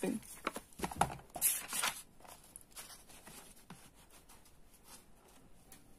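Soft paper rustling and a few light knocks from a notebook being handled and shifted, mostly in the first two seconds, then only faint ticks.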